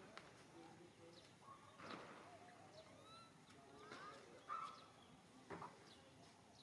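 Faint, scattered short chirping animal calls, a few of them rising in pitch, with occasional soft clicks.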